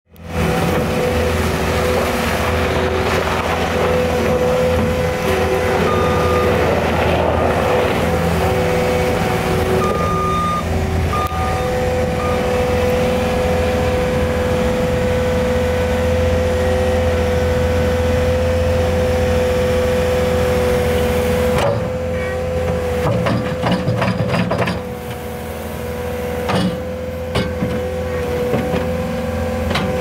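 Caterpillar 272D2 skid steer's diesel engine running steadily under load, with a held hydraulic whine, while it drives and works its bucket; a few short beeps sound about six and ten seconds in. About twenty-two seconds in the engine drops lower and scattered knocks and clanks follow as the bucket comes down to the gravel.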